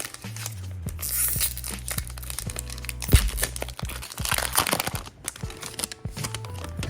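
Foil booster-pack wrapper crinkling and tearing in two stretches, with a sharp thump about three seconds in, over background music with a steady beat.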